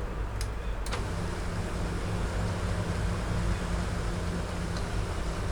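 HP LaserJet P2055dn laser printer: two short clicks, then its drive motor starts about a second in and runs with a steady low hum.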